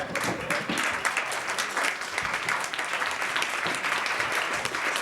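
Audience applauding: many hands clapping steadily, a dense patter of claps.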